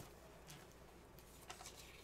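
Near silence broken by a few faint ticks and rustles of hands handling a metal steelbook case and its paper information sheet.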